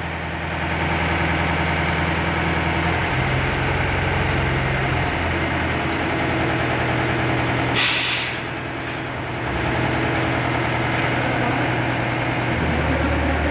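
Heavy diesel engine of a crane or truck running steadily, its pitch shifting in steps a couple of times. A short hiss of released air sounds about eight seconds in.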